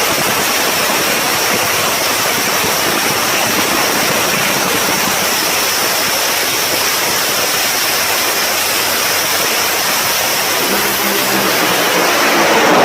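Slingshot dragster engines running, a loud steady roar with no rise or fall; about eleven seconds in, a deeper engine note comes in under it.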